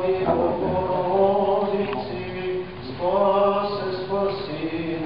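Orthodox liturgical chanting: sung voices holding long notes that step in pitch, with a short break a little past halfway.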